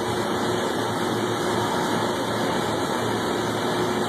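Steady running noise of electroslag welding equipment under way, an even hum with a faint steady tone and no sudden events.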